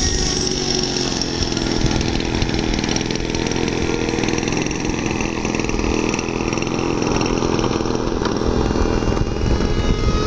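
Electric ducted-fan motor of a model F-35 jet running steadily on a slow landing approach, a continuous whine and rush that gets a little louder near the end as the jet comes closer.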